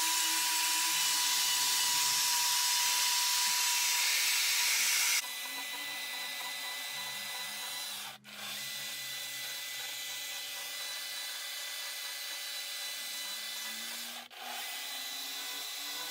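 A die grinder with a flame burr runs at a steady high-pitched whine while grinding wood. About five seconds in it cuts abruptly to a quieter small chainsaw running and cutting wood, which breaks off briefly twice.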